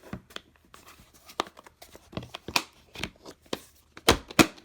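Plastic driver-bit case and its bits being handled: a run of scattered clicks and knocks, with two louder knocks near the end.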